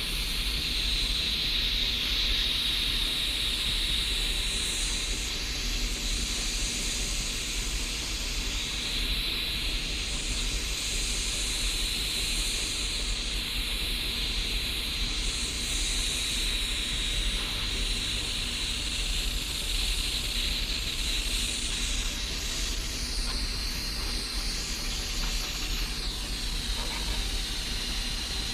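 Gas blowtorch flame hissing steadily as it heats a diesel heater burner to burn off the carbon.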